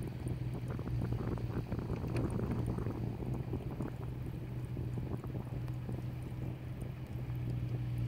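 A steady low engine drone, with wind noise on the microphone.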